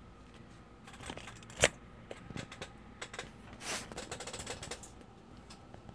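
Light plastic clicks and taps from a plastic scale-model pickup with test-fitted wheels being handled and set on the bench. One sharp knock comes about a second and a half in, and a quick run of clattering clicks comes around four seconds in.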